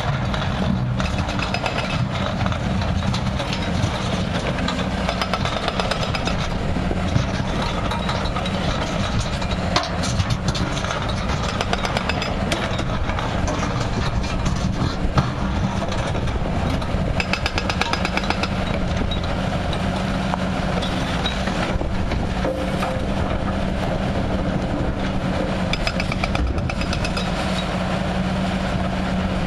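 Heavy excavator diesel engines running steadily under load, with the rapid hammering of a hydraulic breaker on rock. A few sharp knocks of rock against the steel bucket and dump-truck bed.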